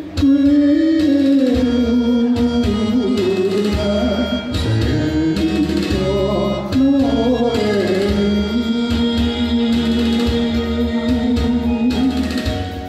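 Music: a slow enka-style song, its melody carried by a lead line with sliding, wavering notes, one held long near the end, over a backing band with a steady beat.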